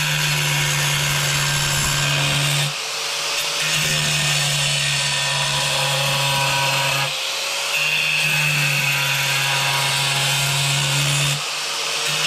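Angle grinder running and grinding a round hole into a tile, the motor's steady hum and cutting noise dipping briefly three times.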